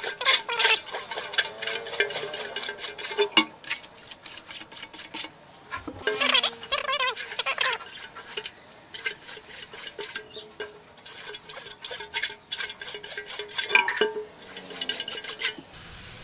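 Plastic card scraping photo emulsion across the mesh of a screen-printing frame in repeated strokes, with many sharp clicks and scrapes.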